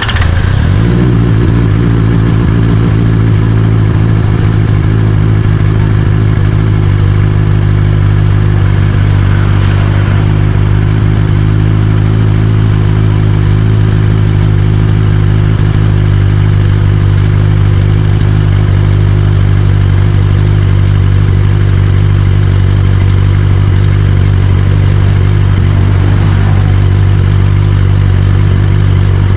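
QJMotor SRK600RC's 600 cc inline-four engine running at a steady idle; the revs settle in the first second, then hold at one even pitch.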